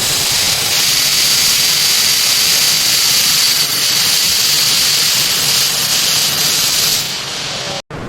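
A steady, loud, high hiss of a spray, with no rhythm or pitch changes, that stops abruptly near the end.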